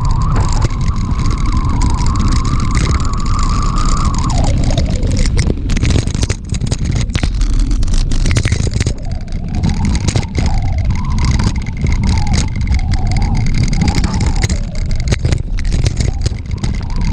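Heavy rumble of wind and handling noise on a mountain biker's GoPro microphone, with scattered clicks and rattles of the bike on a rough trail. A wavering higher tone sits over it and drops away about four seconds in.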